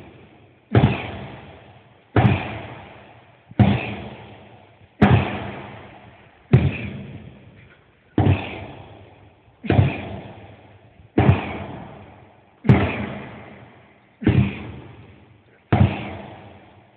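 Sledgehammer striking a tractor tyre in a steady rhythm, a heavy thud about every second and a half, eleven strikes in all. Each one rings on in the echo of a large, empty hall for more than a second.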